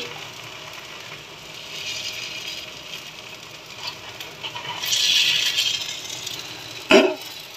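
Batter sizzling on a hot iron tawa as it is spread and pressed flat by hand, swelling to its loudest about five seconds in. A single sharp click comes near the end.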